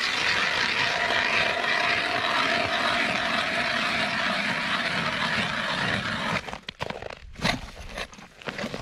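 Ice auger drilling a hole through lake ice: a steady grinding hiss with a faint whine that stops abruptly about six seconds in, followed by a few scattered knocks.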